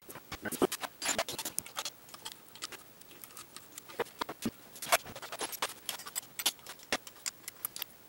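Irregular light clicks, taps and rattles of parts being handled as the red top cover is lifted off a Saab 2.3 engine to get at the spark plugs.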